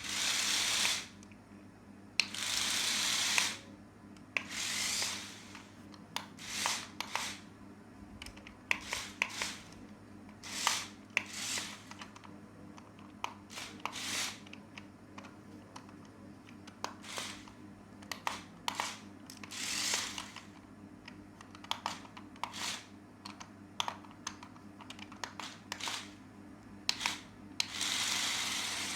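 Small handling noises: repeated clicks and taps, with several second-long rustling or hissing bursts, over a steady low hum.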